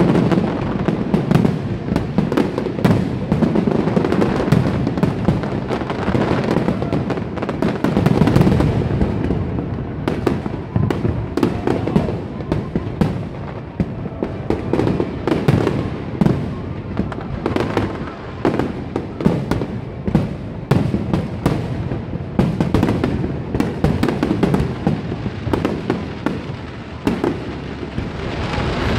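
Aerial fireworks bursting in a dense, continuous barrage: rapid bangs and crackling over a low rumble, heaviest in the first third.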